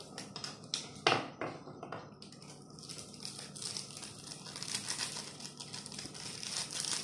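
Small foil instant-noodle seasoning sachets being cut open with scissors: a few sharp snips about a second in, then steady crinkling of the foil as the packets are squeezed out over the noodles.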